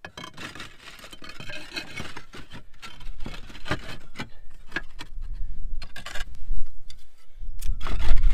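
Clay roof tiles scraping and clicking against each other as they are lifted and slid into place by hand, with a string of short knocks. A low rumble builds in the second half and is loudest near the end.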